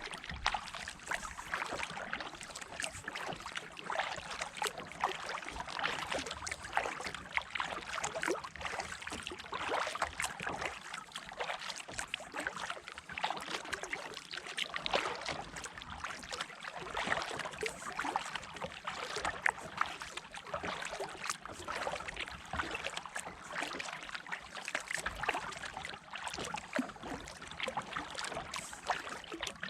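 Water splashing and trickling around a kayak as it is paddled, as a steady run of small irregular splashes and drips.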